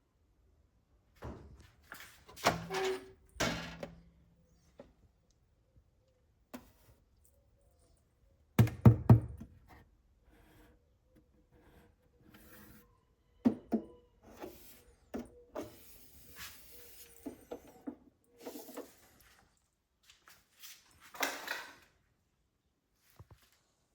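Scattered thunks and knocks of things being handled and set down, with quieter rustling between them; the loudest pair of thunks comes about nine seconds in.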